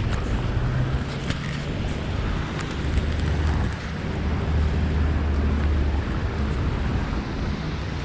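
Wet-street traffic noise: a nearby car engine running low and steady, with wind buffeting the microphone.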